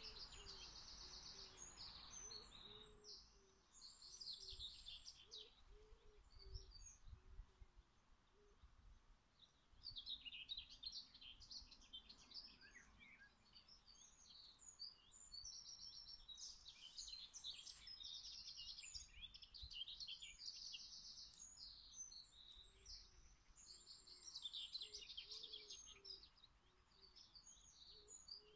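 Small songbirds chirping and trilling faintly in the background, in clusters of quick high notes that come and go.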